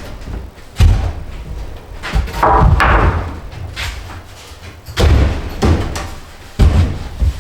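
Several heavy, dull thuds and knocks from construction work, about four of them spaced a second or two apart, with scraping and rustling between.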